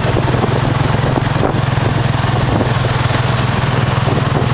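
Tuk tuk's small motorcycle engine running steadily as it drives along, heard from the passenger carriage, with a fast even throb.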